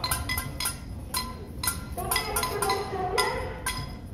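Pots and pans being banged, with bells rung, in a rapid irregular metallic clanking, several ringing strikes a second. Voices singing or chanting come in about two seconds in.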